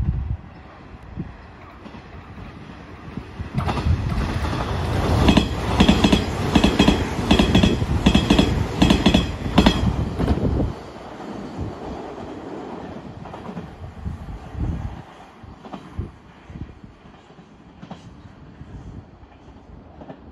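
Hanshin 1000 series electric train passing at speed, its wheels clattering in a regular rhythm over the rail joints. The sound builds about three seconds in, is loudest for about six seconds while the cars go by, then fades as the train moves away.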